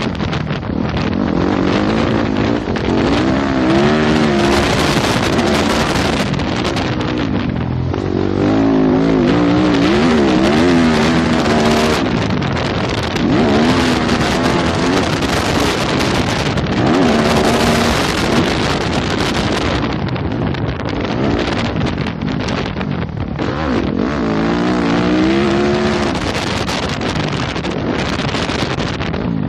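2015 Yamaha YZ250F's four-stroke single-cylinder engine revving up and falling back again and again as the dirt bike is ridden around a motocross track, over a steady rush of wind on the microphone.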